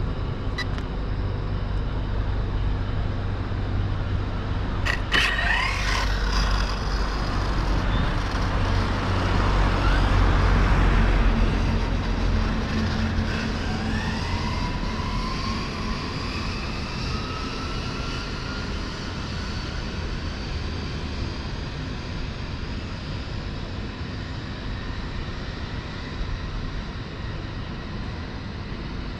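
Wind rumbling on the microphone, swelling to a gust about ten seconds in and then easing, over road traffic noise. A few sharp clicks come about five seconds in.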